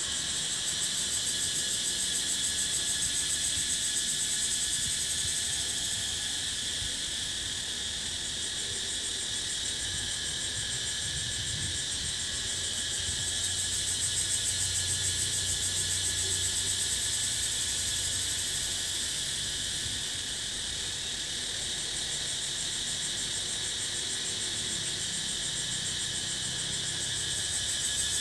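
Cicadas calling in a continuous shrill chorus that slowly swells and eases without a break.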